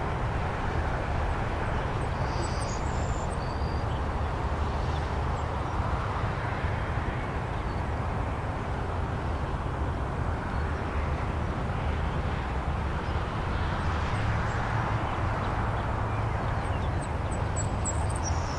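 Steady low rumble of jet airliner engines across an airfield, swelling and easing slightly, with a few short high chirps a few seconds in and again near the end.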